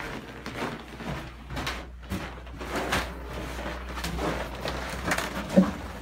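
Footsteps crunching on very cold snow, irregular, with the rustle of a winter parka. There is a short, louder knock near the end.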